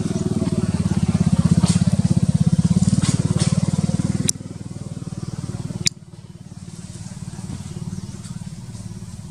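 A small engine running steadily with a low, evenly pulsing rumble. It is interrupted by two sharp clicks, about four and six seconds in, and the sound drops in level after each one.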